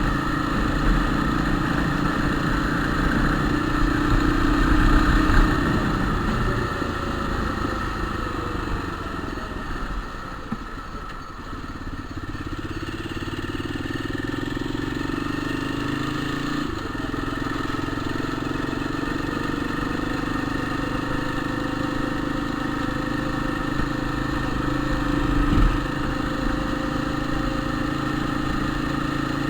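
Motorcycle engine running. Its revs sag about six seconds in, climb back over the next few seconds and then hold steady, with a single brief clunk near the end. The owner suspects the strange noise this engine makes comes from the gearbox.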